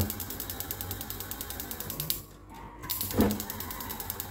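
Gas stove burner's electric igniter clicking rapidly and evenly while the burner is lit, the clicking breaking off briefly about two seconds in and starting again. A soft low thump comes at the start and another about three seconds in.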